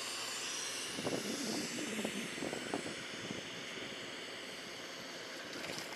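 Spinning reel's drag slipping with a steady high-pitched buzz as line pays out under a running fish.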